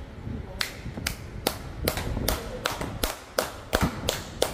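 Sharp claps in a steady, even rhythm, about two and a half a second.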